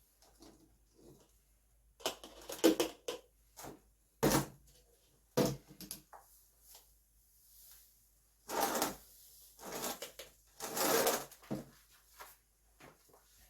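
Kitchen handling sounds as diced pear and sugar are measured out and layered into a glass jar: irregular knocks and clacks, with a few longer half-second scraping, pouring sounds about two-thirds and four-fifths of the way in.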